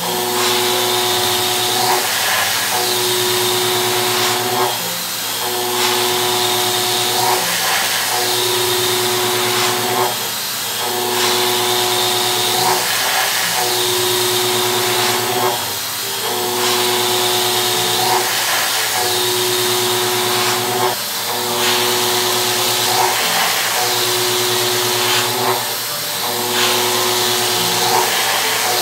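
Milling machine cutting a steel block with an indexable-insert milling cutter: a steady whine from the spindle and cutter over a hiss of cutting, breaking off briefly every few seconds.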